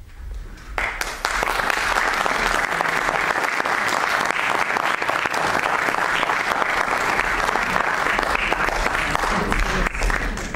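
Theatre audience applauding. The clapping starts about a second in, holds steady and dies away near the end.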